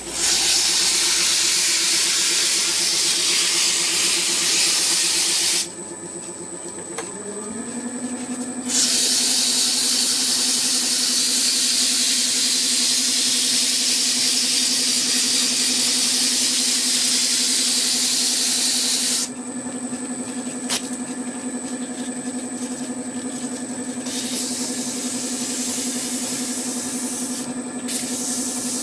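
Metal lathe running with a steady motor hum, under two long stretches of hissing as kerosene-wetted 1200-grit wet-or-dry paper is pressed against the spinning threads of a steel vise leadscrew to polish them. The lathe motor's pitch shifts about seven seconds in.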